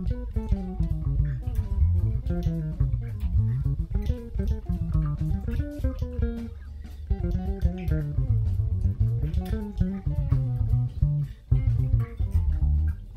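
Electric bass played fingerstyle in fast runs of single notes that climb and fall in pitch.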